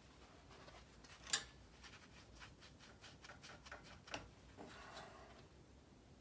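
Faint clicks and taps of small parts being handled, with one sharper click a little over a second in and another about four seconds in, then a short light scrape.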